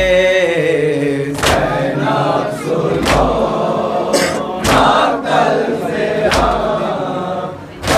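Male voices chanting an Urdu noha (mourning lament) in unison, a held line dying away about a second in, then looser group voices. Through it runs matam: hands slapping chests in a steady beat, one slap about every one and a half seconds.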